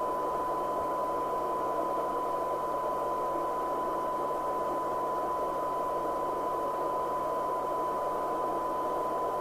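Cybernet Beta 2000 FM CB radio's receiver putting out a steady test tone half buried in hiss: a very weak modulated test signal at the set's sensitivity limit during a SINAD measurement.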